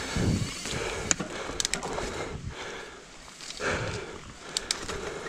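Mountain bike riding fast down a dirt forest trail: a steady rush of tyres on loose dirt and wind, with the bike rattling and a few sharp clicks and knocks from the frame and drivetrain over bumps.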